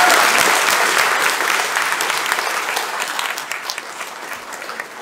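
Audience applauding, the clapping fading steadily from about two seconds in and thinning out by the end.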